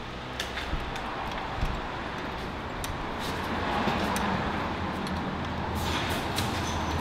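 Steady rushing noise of a vehicle running in the parking garage, echoing, growing louder from about halfway through. A few light clicks of the handlebar and its controls being handled sound over it.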